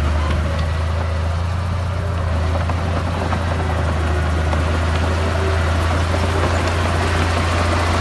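Komatsu crawler bulldozer's diesel engine running steadily at close range, a low, even drone.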